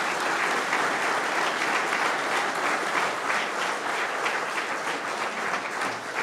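Audience applauding at the close of a speech: a steady patter of many hands clapping, easing off slightly near the end.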